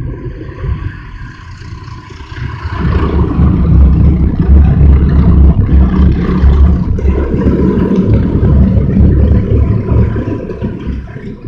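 Automatic car wash spraying water onto the car, heard from inside the cabin: a loud rushing with a deep drumming rumble that builds about three seconds in and eases off near the end.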